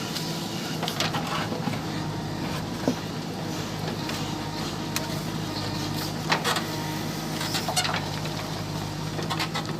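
JCB 3DX backhoe loader's diesel engine running steadily, with scattered sharp clicks and knocks over it.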